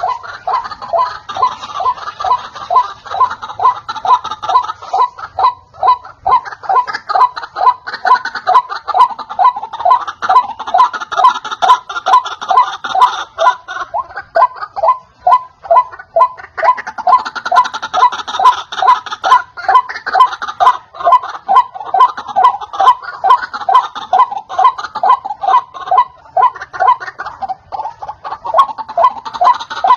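White-breasted waterhen (ruak-ruak) calling: a fast, unbroken series of harsh, cackling calls at about three a second, layered and thicker in stretches as if more than one bird is calling.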